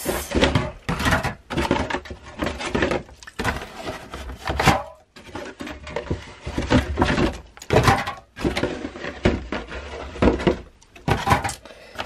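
Handling noise from a cardboard box of canned soda: a string of knocks, bumps and rustles as the box and its cans are shifted about.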